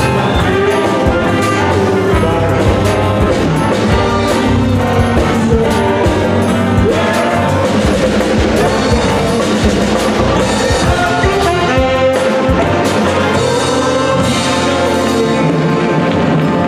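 Live big band playing: saxophones, trumpets and trombones over drums. About twelve seconds in the music jumps abruptly to a different passage.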